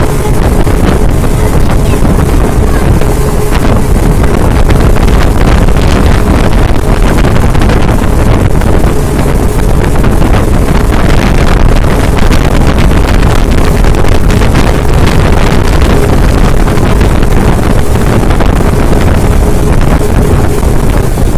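Speedboat running at speed, with a steady engine drone under heavy wind noise buffeting the microphone.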